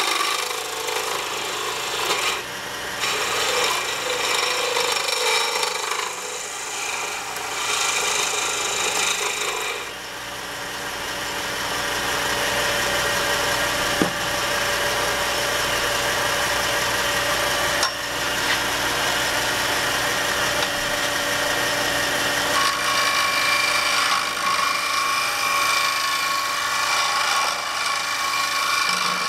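Wood lathe running while a skew chisel shaves a spinning wooden pen blank: a scraping, shaving sound over the lathe's hum for the first ten seconds or so. Then the lathe runs on with the tool off the wood, and the cut starts again in the last few seconds.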